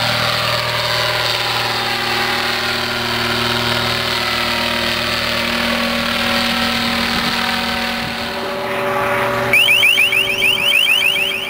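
Unmanned helicopter's engine and rotor running steadily in flight. Near the end a louder, rapidly repeating rising chirp starts over the engine: the alert tone of the LRAD 300X loudspeaker the helicopter carries.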